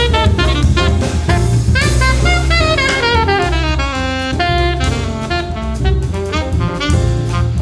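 Jazz quartet of saxophone, piano, bass and drum kit playing a samba-jazz tune, the saxophone leading with fast descending runs over the drums and bass.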